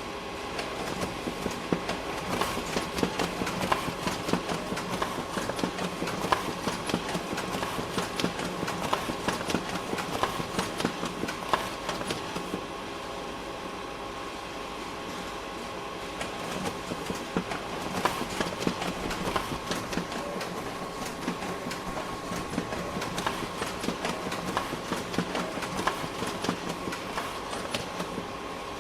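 Office printer running: a steady mechanical hum under a dense rattling clatter of printing. The clatter stops for a few seconds midway, leaving the hum alone, then starts again.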